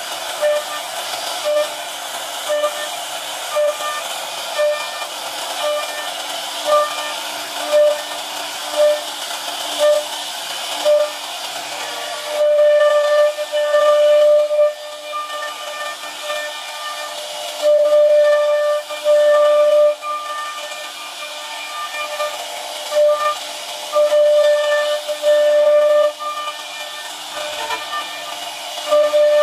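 CNC router spindle whining steadily while its profiling bit cuts a wooden door panel, with a hiss of wood being cut. The whine swells in short pulses about once a second, then in longer, louder stretches from about halfway through.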